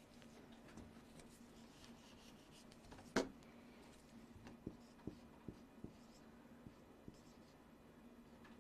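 Quiet handwriting: a pen or marker scratching out numbers, with one sharp tap about three seconds in and a run of light taps after it, over a faint steady hum.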